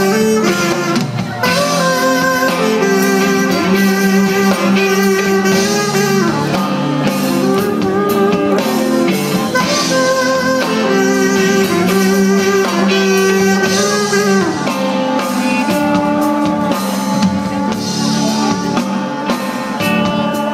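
Live band playing loud amplified music: sustained melodic lines shifting in pitch every second or two over drums, with no singing.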